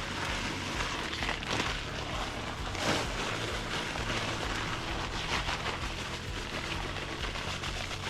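Concrete mix being poured and worked into a fence-post hole: a steady, gritty, rain-like hiss with a few short scrapes.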